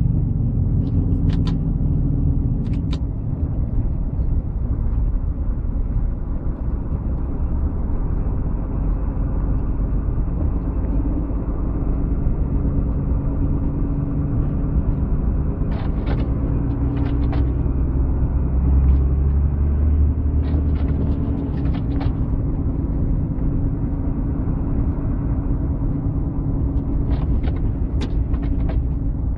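Motor vehicle running with a steady low rumble, with a few sharp clicks scattered through.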